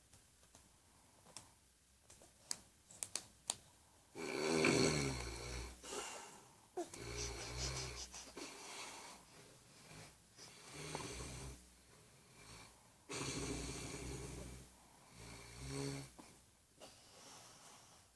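A man snoring: about five rough snores, each one to two seconds long and roughly three seconds apart, starting about four seconds in after a few sharp clicks.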